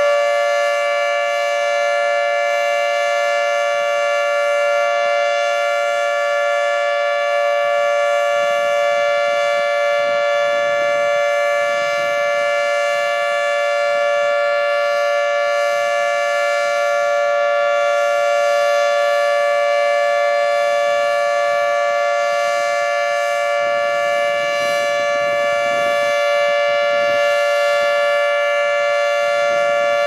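Federal Signal 2T22 dual-tone rotating outdoor warning siren sounding its steady alert signal: two loud tones held together as a chord, unchanging in pitch.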